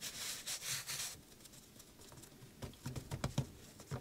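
Hands rubbing, pressing and patting croissant dough on a floured wooden cutting board: a soft brushing rub at first, then a few light pats near the end.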